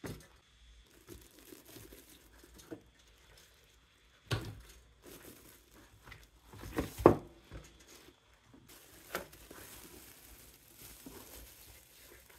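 Thin plastic bag crinkling and rustling as it is handled and pulled off a new toaster, with a few sharper, louder moments, the loudest about seven seconds in.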